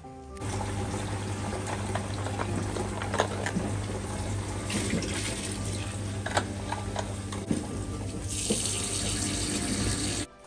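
Tap water running in a steady stream into a plastic bucket standing in a sink, filling it. The rush turns brighter and hissier about eight seconds in and cuts off abruptly just before the end.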